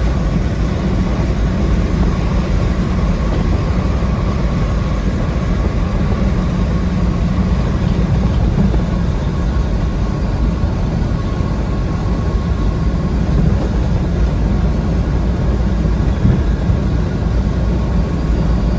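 Tractor-trailer rolling at highway speed: steady engine drone and road noise, with a faint steady whine above it.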